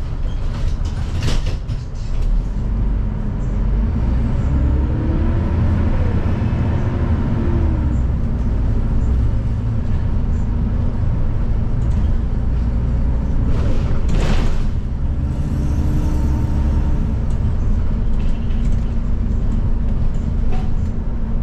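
City bus running, heard inside the cabin near the rear: a low steady rumble with a whine that rises and falls as the bus speeds up and slows. Short bursts of hiss come about a second in and again about 14 seconds in.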